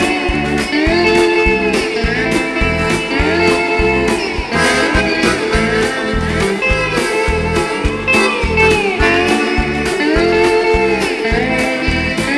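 A live rock band plays an instrumental break: an electric guitar solo with bent, gliding notes over a steady drum beat.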